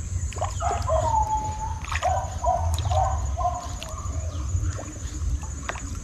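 A series of short animal calls, several in a row in the first half, over a low steady rumble.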